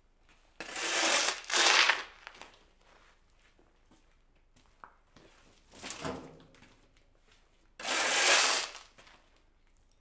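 Steel shovel blade scraping hard across concrete as it is pushed under loose dirt: two quick strokes about a second in and another near the end. Around six seconds there is a softer, duller shovelful as dirt is tipped into the trailer.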